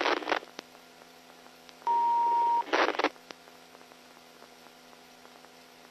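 A police radio tone: one steady beep about 0.8 s long, about two seconds in, followed a second later by a short burst of radio noise. Otherwise the radio is near silent between transmissions.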